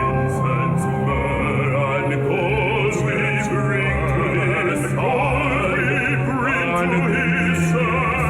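Opera music: a singer with heavy vibrato over an orchestral accompaniment with sustained low notes.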